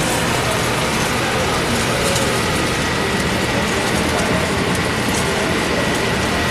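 Steady, loud sizzling of food frying in a hot pan, a dense crackle that does not let up.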